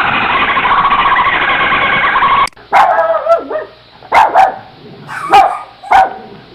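A steady, noisy sound cuts off suddenly about two and a half seconds in. Then a dog barks: about six short, sharp barks, some in quick pairs.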